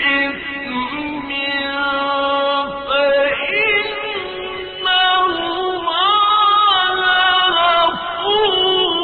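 A man chanting the Quran in the slow, melodic mujawwad style: long held notes, ornamented with wavering turns and glides, with a short fall in level a little past the middle before the voice rises again.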